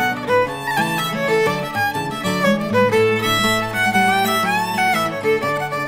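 Background music led by a violin, playing a lively run of notes over a steady accompaniment.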